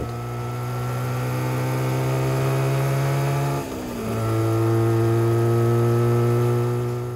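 Suzuki GT250's two-stroke parallel-twin engine running under way with a steady note that climbs slowly. About halfway through the revs dip briefly, as at a gear change, then hold steady again. The sound fades near the end.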